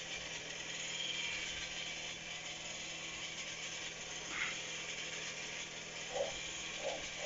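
German shepherd puppy giving a few short whines and yips while being played with, over a steady mechanical whirring hiss.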